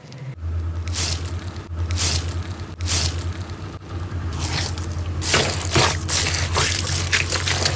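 Slime being squished and worked by hand: a quick run of sticky squishing and crackling sounds over a low steady hum that comes in about half a second in.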